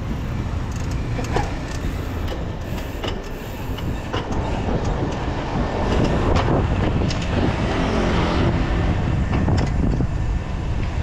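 Wind buffeting the microphone and road noise while a bicycle rides along a street, with scattered sharp clicks and rattles.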